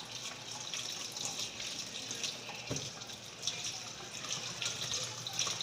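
Water running from a kitchen tap and splashing as fruit is rinsed under it, a steady stream with small irregular splashes.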